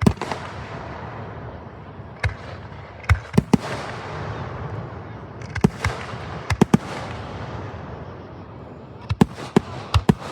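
Aerial fireworks shells bursting: a dozen or so sharp bangs, some in quick pairs and clusters, over continuous crackle and rumble from the display.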